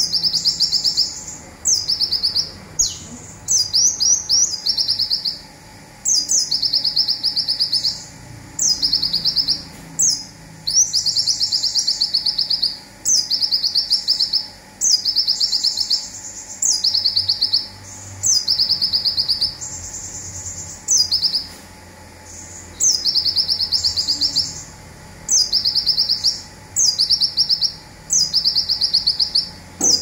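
Konin sunbird singing its 'zipper' song: high, very fast rattling trills, each about a second long and often led by a short sharp note, repeated every second or two.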